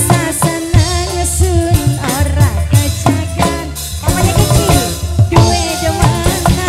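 Live dangdut band music: a drum kit keeping a steady beat under a sliding, ornamented melody, with a woman singing.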